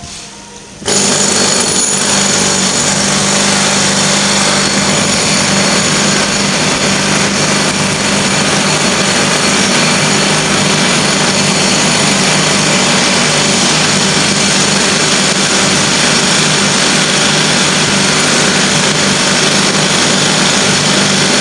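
A loud, steady machine noise with a low hum underneath, starting suddenly about a second in and holding unchanged.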